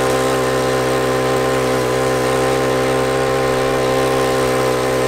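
Small gas engine of a motorized ride-on cooler running at a steady speed while riding, a constant buzzing hum.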